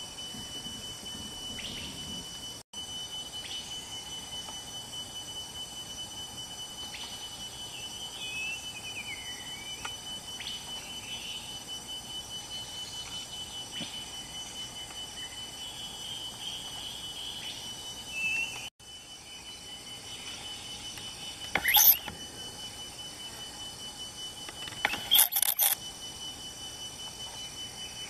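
Outdoor ambience: a steady high-pitched whine with small birds chirping now and then, and two loud, sharp, brief calls about three quarters of the way through and again near the end.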